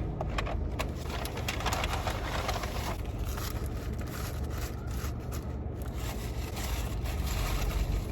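Eating sounds: chewing, with crackles and clicks like fast-food wrappers and packaging being handled, over a steady low hum.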